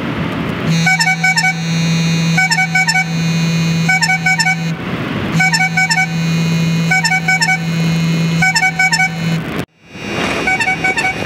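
iPhone ringing with an incoming call: a short figure of high ringtone notes repeats about once a second. The phone's vibration motor buzzes against the camp chair's fabric in two runs of about four seconds each. Near the end the sound breaks off for a moment, then the ringtone carries on without the buzz.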